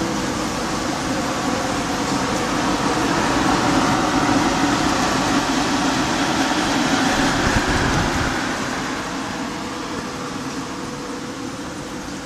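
Three-cylinder rotary sand dryer plant running, with its centrifugal blower fan: a steady hum under a rush of air. Louder in the middle, falling away over the last few seconds.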